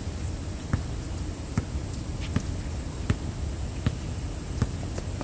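A basketball being dribbled, a sharp bounce about every three-quarters of a second, over a steady low rumble.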